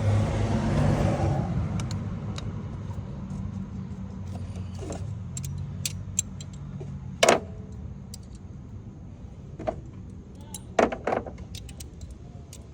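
Light metallic clinks and clicks of bolts and hand tools against the engine as bolts are threaded in by hand. The loudest click comes about seven seconds in and a pair follows near the end. A steady low hum and a brief rush of noise at the start sit underneath.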